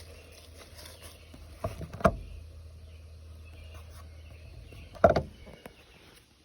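A few sharp knocks over a faint low hum: two close together about two seconds in, and a louder one about five seconds in.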